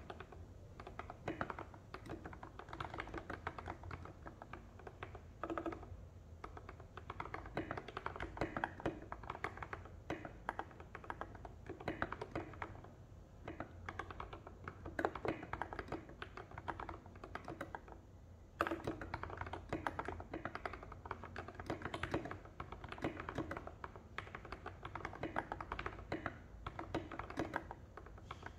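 Continuous typing on an NJ68 mechanical keyboard with lubed Gateron Milky Yellow linear switches and SA-profile keycaps: a dense stream of keystroke clacks, with a few short lulls.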